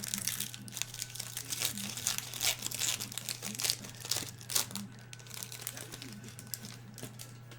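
Plastic wrapping of trading-card packs crinkling and tearing as the cards are unwrapped and handled, dense and rapid for about five seconds and then thinning out. A steady low hum runs underneath.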